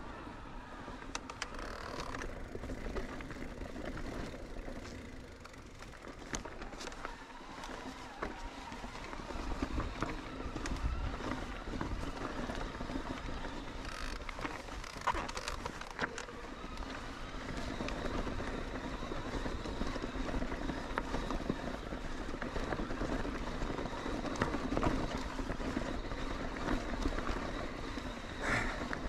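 Electric mountain bike (Trek Rail with Bontrager XR4 tyres) being ridden on a trail: steady rolling noise of the tyres over the dirt and stones, with frequent clicks and rattles from the bike.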